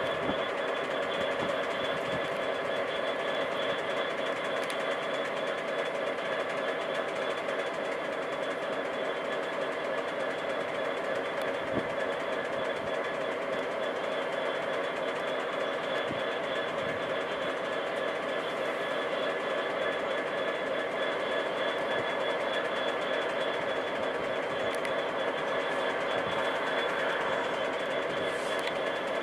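Class 66 diesel-electric freight locomotive, its EMD two-stroke V12 engine running with a steady whine, hauling a long train of hopper wagons as it approaches over pointwork. It grows a little louder near the end as it draws close.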